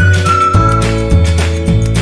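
Background music: a high, pure-toned melody of held notes over sustained chords and a bass line.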